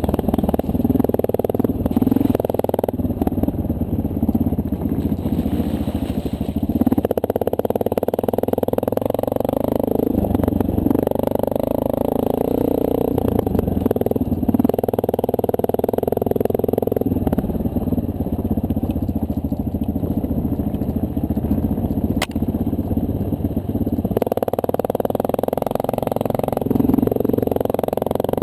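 2009 Honda CRF230L's single-cylinder four-stroke engine running under way, its note shifting up and down every few seconds as the throttle opens and closes.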